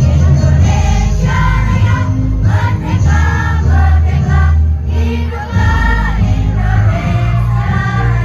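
Children's choir singing to loud amplified backing music with a heavy bass line.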